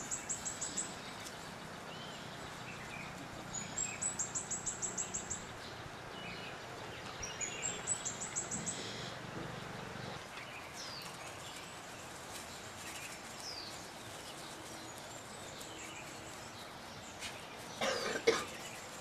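A songbird singing a short high phrase three times, about every four seconds: each phrase rises, then breaks into a fast, even trill. Fainter scattered chirps follow, and a brief louder noise comes near the end.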